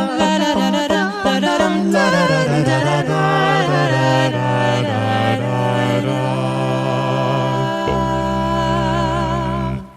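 Background music of voices singing in harmony. It ends on a long held chord, with a deep low note coming in near the end, and then stops abruptly.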